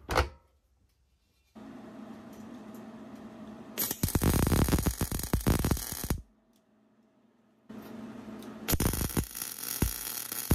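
MIG welder laying two short welds of about two seconds each, the arc crackling and sizzling loudly. A steady hum comes on before each weld, and there are a few sharp clicks at the very start.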